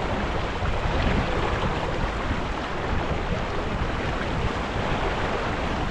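Steady rush of wind buffeting the microphone and water washing along the hull of a sailing yacht under way.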